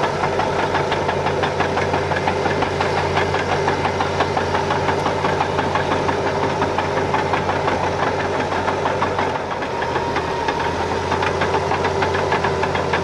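Caterpillar D7H bulldozer's six-cylinder turbo diesel engine running steadily with a rapid, rattling beat, briefly dropping in loudness about nine and a half seconds in.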